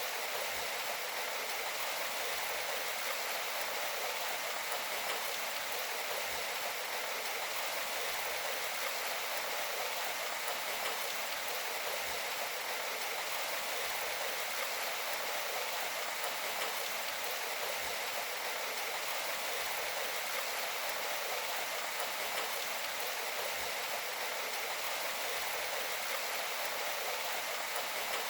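Steady rain, an even hiss with almost no low rumble and no music.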